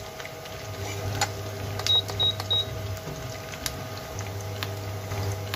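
Onion slices frying in oil in a nonstick pan on an induction cooktop, with scattered crackles. The cooktop's low hum cuts out after a couple of seconds and then starts again, the way an induction hob pulses at a low setting, and about two seconds in come three short high beeps.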